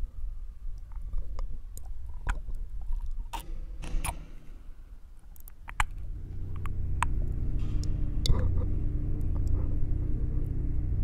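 Experimental sound composition: sparse sharp clicks and crackles, wet and mouth-like, over a low drone. The drone drops out at the start and comes back about six seconds in.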